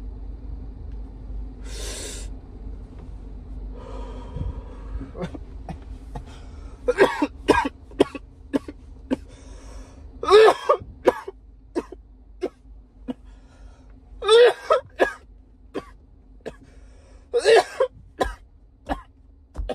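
A man coughing hard in repeated fits of several coughs each after a long 'blinker' draw on a THC disposable vape. A breathy exhale comes before the coughing starts about seven seconds in. A steady low hum runs underneath.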